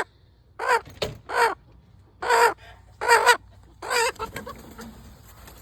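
Young chicken squawking while being handled: five loud, harsh calls, one every second or so, ending about four seconds in.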